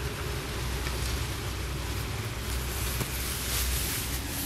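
Wind blowing across the microphone: a steady, uneven low rumble with a light hiss on top.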